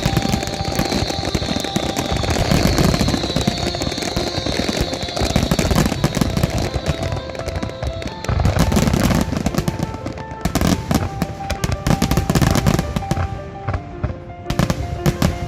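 Fireworks going off in quick succession, dense crackling and bangs that grow heavier about halfway through, with music playing alongside.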